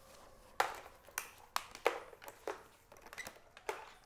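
Handling noise from a Shark Vertex upright vacuum and its power cord: about seven sharp plastic clicks and knocks at uneven intervals.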